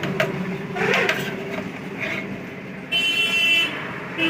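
A continuity tester beeps once, a high electronic tone lasting under a second, about three seconds in, as the mixer grinder's power cord is tested. The beep shows the wire conducts and is not broken. Light handling rustles come before it over a steady low hum.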